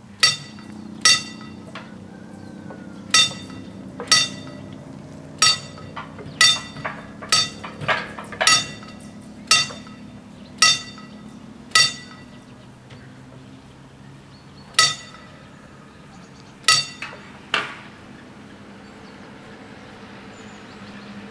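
Level-crossing warning bell ringing in single metallic strokes, irregularly spaced at roughly one a second, while the barriers lower; the strokes stop a few seconds before the end, leaving a low steady hum.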